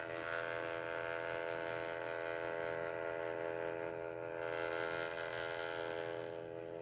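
Mini pocket thermal printer's paper-feed motor running while it prints a photo: a steady whine of several tones that fades slightly near the end.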